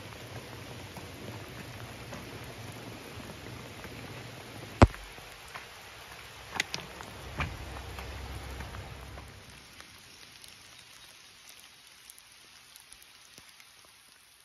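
Steady rain falling, with a few sharp knocks, the loudest about five seconds in. A low rumble under the rain stops after about ten seconds, leaving fainter rain.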